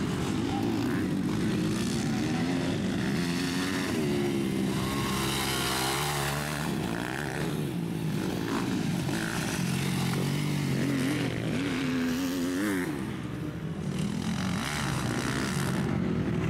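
Several MX2-class motocross bikes racing, their engines revving up and dropping again and again as they accelerate, shift and brake around the track, with more than one bike heard at once.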